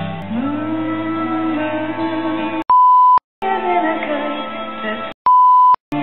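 Soft music with held notes, cut twice by a loud, steady 1 kHz censor bleep of about half a second, once about three seconds in and again near the end. The music drops out entirely around each bleep.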